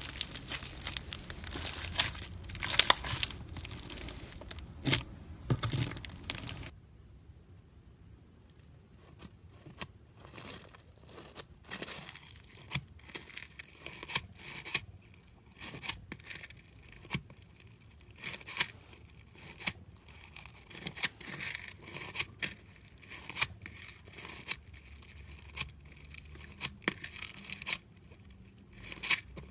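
Fishbowl slime (clear slime packed with foam beads) being squished and stretched: dense crunchy crackling for the first several seconds. After an abrupt break this gives way to sparser crackles and small pops.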